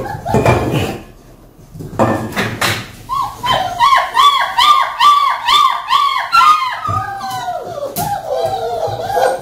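German shepherd puppies whining in a quick series of short, high cries, about three a second, turning into longer wavering whines near the end. A few knocks and scuffles come in the first few seconds.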